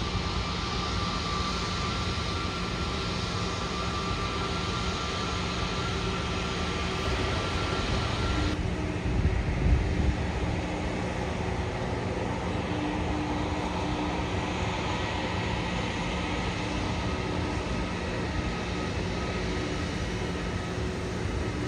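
Airbus A320neo's Pratt & Whitney PW1100G geared turbofans running at low power as the airliner taxis: a steady whine over a rumbling noise. The sound changes abruptly about eight seconds in, with a few low bumps soon after.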